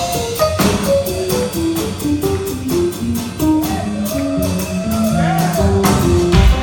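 Instrumental jazz-rock band playing live: a fast melodic line of short notes over bass and drum kit, with a few bent, wavering notes about three-quarters of the way through.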